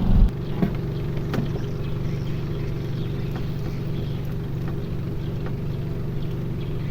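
A small boat engine running steadily at an even idle, with a few faint clicks over it.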